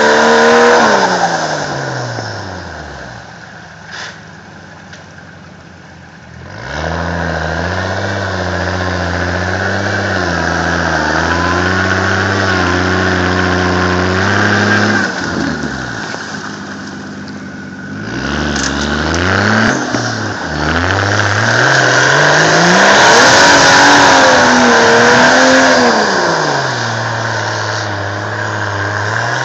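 Engine of a lifted, mud-tired 1992 Chevy C1500 pickup revving hard under load as the truck churns through a muddy ditch. Twice the revs fall away to near nothing and then climb again.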